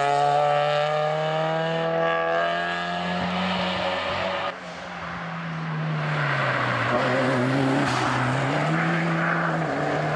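Two rally hatchbacks at full throttle on a hill-climb road, one after the other: the first accelerates away, its engine note climbing and then dropping at a gear change, until it cuts off suddenly about four and a half seconds in. Then a Peugeot 205's engine comes up the road, revs rising and falling through its gear changes as it passes.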